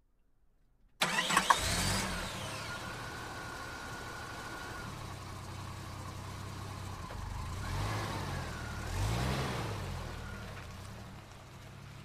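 SUV engine starting about a second in, with a few quick clicks as it catches, then idling steadily. Two brief revs follow as it backs out, and the sound eases off toward the end.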